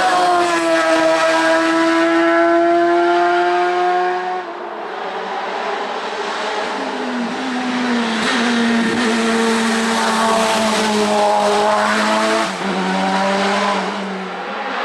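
Hill-climb race car engine at high revs, its pitch rising slowly under acceleration. It eases off about four and a half seconds in, pulls hard again, and changes gear with a sudden drop in pitch about twelve and a half seconds in.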